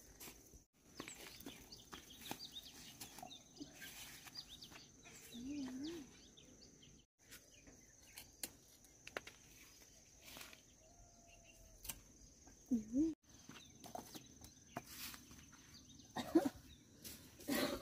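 Rural farmyard ambience: a few short, wavering low calls from farm animals, with scattered light clicks and knocks over a faint steady high tone. A few sharper knocks near the end are the loudest.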